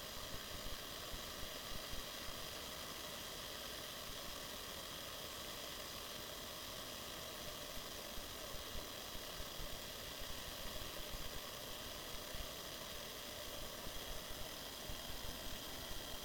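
Water heating toward the boil in an aluminium Foster's beer-can pot over a Fancee Feest alcohol stove burning 91% isopropyl alcohol: a steady hiss with scattered faint ticks, the noise of the water as it nears boiling.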